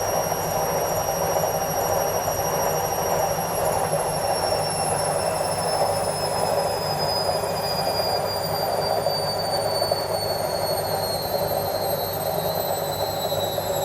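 Indesit washing machine on its spin cycle at full speed: a steady rushing hum with a high-pitched whine ('screaming') that slowly falls in pitch as it goes on.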